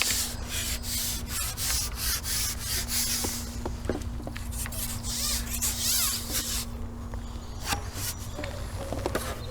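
Carbon fishing pole being shipped back: repeated rubbing and scraping strokes as the pole sections slide back through the hands and over the roller while a hooked fish is brought in. The rubbing eases about seven seconds in, over a faint steady hum.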